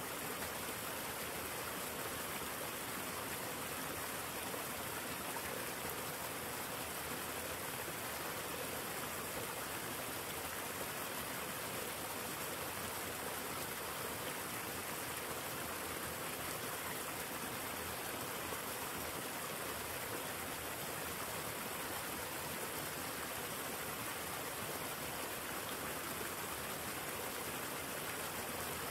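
River water flowing steadily, an even rushing with no change.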